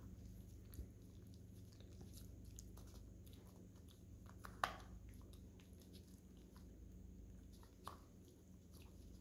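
An American Akita puppy faintly licking and gnawing an ice cube: scattered small wet clicks, with a sharper click about halfway through and another near the end.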